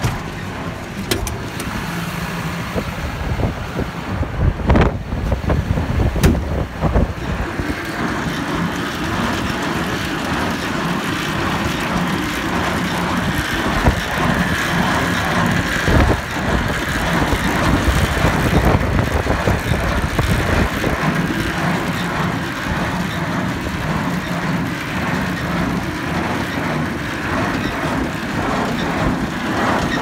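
New Holland 940 conventional small square baler running, driven from a tractor's power take-off, with a steady engine drone under a rhythmic mechanical clatter from the baler's mechanism. A few heavier knocks come a few seconds in.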